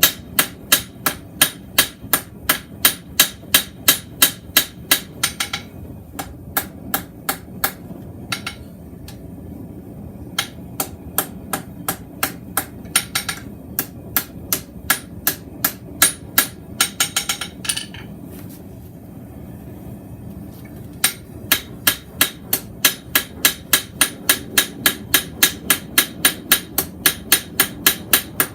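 Blacksmith's hand hammer striking a hot mild-steel bar, forging it into shape: sharp ringing blows at about two to three a second, in runs with a few short pauses.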